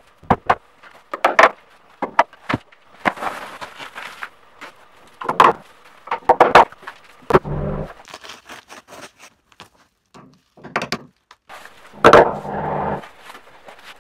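Irregular sharp tool strikes fixing a sheet of reflective foil insulation, with crinkling and rustling of the foil in between.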